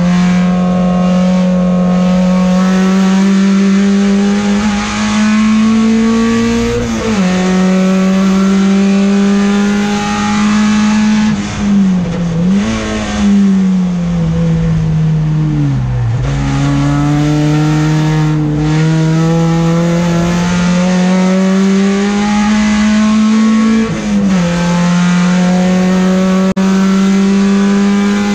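Peugeot 405 STi race car's four-cylinder engine heard from inside the cabin, revving hard through the gears. The pitch climbs and drops sharply at an upshift about seven seconds in, then falls with several quick blips around twelve seconds as the driver shifts down and brakes. It bottoms out near sixteen seconds, then climbs steadily again to another upshift about twenty-four seconds in.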